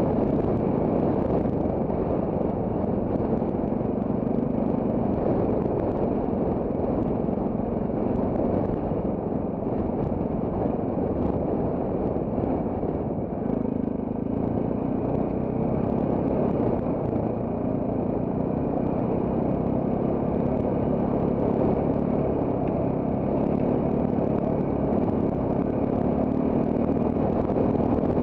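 Trail motorcycle engine running at a fairly steady pace while being ridden, its pitch shifting a little with the throttle and easing off briefly about halfway through.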